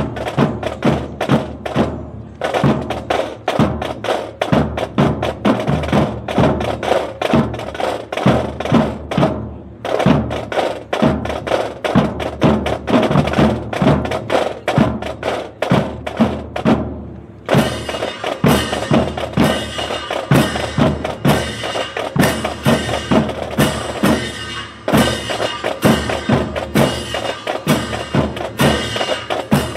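Military drum and bugle corps playing a percussion-driven piece of dense, rapid drum strokes. It breaks off briefly twice and comes back brighter and fuller a little past halfway.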